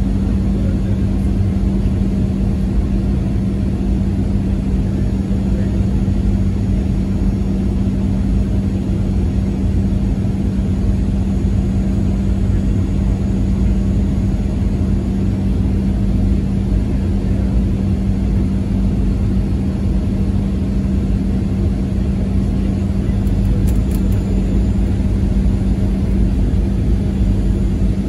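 Airliner cabin noise in flight: a constant low rumble of engines and rushing air with a steady hum.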